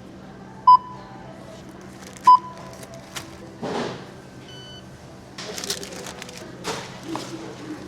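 Two short, loud electronic beeps of a store checkout barcode scanner, about a second and a half apart. Rustling and handling noises follow over a steady background hum.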